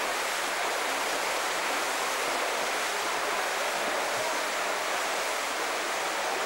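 Racing swimmers splashing through the water of an indoor pool hall, heard as a steady, even wash of noise.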